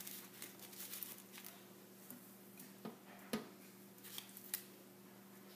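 Faint handling sounds of raw chicken breast strips being laid into a slow cooker's crock: soft wet rustles and light clicks, with two sharper clicks about three seconds in.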